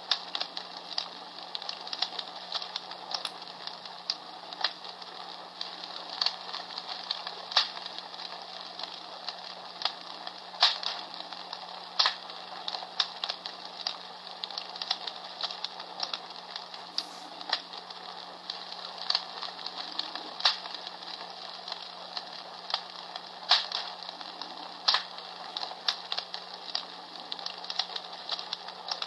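Comfort Smart Fire Crackler, a small battery-operated sound machine, playing a recorded crackling wood fire through its small speaker: a steady hiss with irregular sharp pops and snaps every second or so.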